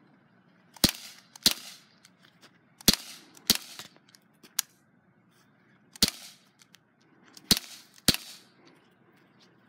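Daisy Powerline 415 CO2 BB pistol (.177) fired seven times in sharp pops, mostly in pairs about half a second apart, each with a brief ring-out.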